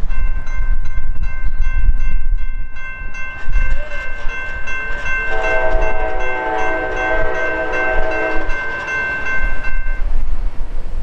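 Railroad crossing bell ringing steadily as the gate arm lowers, stopping about ten seconds in. About halfway through, the approaching Norfolk Southern GE AC44C6M locomotive's horn sounds one long chord of about three seconds. Wind rumbles on the microphone.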